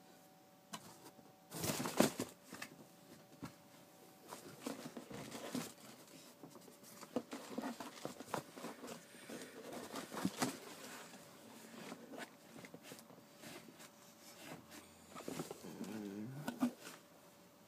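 A cardboard shoe box being handled and opened, with irregular knocks, taps and rustles as a football boot is lifted out of it. The loudest knock comes about two seconds in, and a short wavering pitched sound comes near the end.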